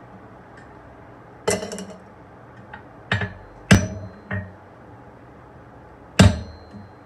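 Hand-forging hot steel on an anvil, cutting fullers into a stake: five unevenly spaced hammer blows, the two loudest leaving a high metallic ring.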